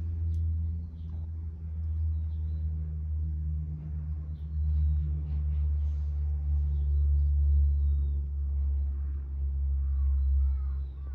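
A steady low mechanical hum, growing louder for a few seconds in the middle, with faint high chirps above it.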